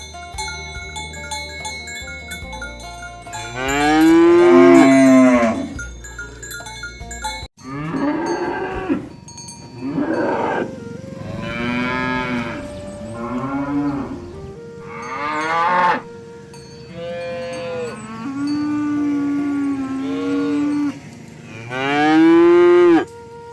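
Cattle mooing repeatedly: about eight drawn-out calls one after another, some long and loud, rising and falling in pitch.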